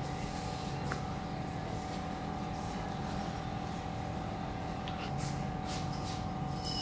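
Steady electrical hum over room noise, with a few faint light taps about five seconds in.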